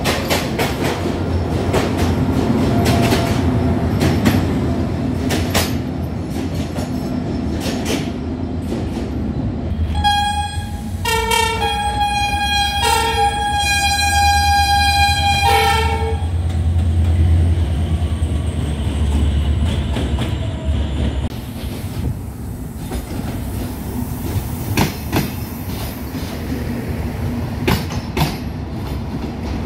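Train running through a station with a low rumble and wheels clicking over rail joints. Its horn sounds several short blasts and then a longer one, starting about a third of the way in and lasting some six seconds. The rumble falls away a little after two-thirds of the way through.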